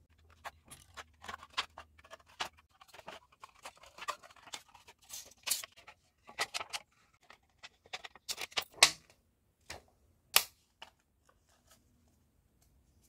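Scissors snipping through thin aluminium sheet cut from a drinks can: a long run of sharp, irregular snips that stops a couple of seconds before the end.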